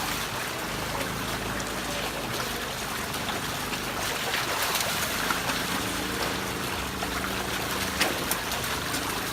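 Water running and trickling, a steady rushing noise with a faint low hum beneath it and a few sharp clicks.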